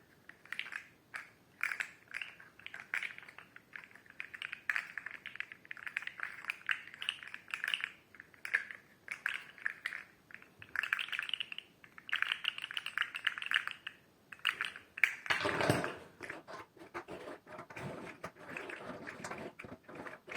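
Segmented flexible slug fidget toy being flexed and twisted in the hands, its jointed segments clicking and rattling in irregular bursts, with a louder, fuller stretch about fifteen seconds in.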